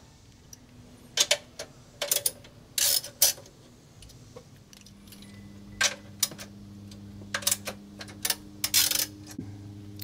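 Small metal clicks and clinks of a wrench working the 10 mm lock nuts off the flame arrestor cover of a marine V8 engine, in short irregular clusters.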